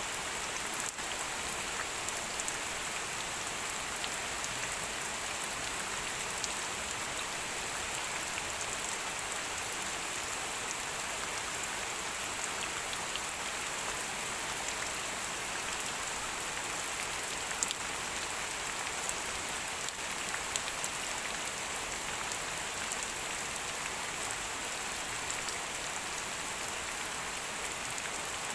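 Steady rain falling, an even hiss with scattered drops pattering on a surface.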